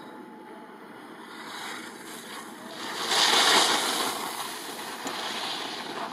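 Skis carving on packed snow as a slalom skier turns past close by: a hissing scrape that builds, is loudest about three seconds in, then fades as the skier moves away.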